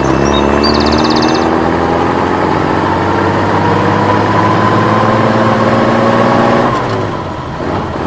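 Truck engine sound effect accelerating, its pitch rising slowly and steadily for several seconds, then easing off briefly near the end before winding up again.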